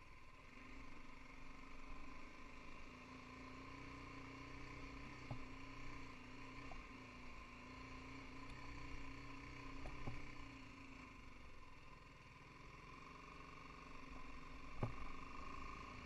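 BMW G 310 GS's single-cylinder engine running faintly at low, steady revs, its note wavering slightly, with a few brief knocks as the bike rides a rough dirt track; the loudest knock comes near the end.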